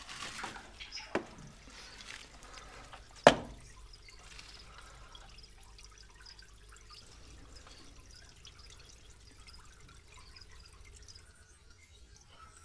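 A few light clicks and taps in the first seconds, the loudest a single sharp click about three seconds in, then only faint steady room noise.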